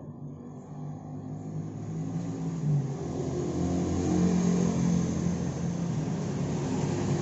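A motor vehicle engine running, growing louder over the first few seconds and then holding a steady hum.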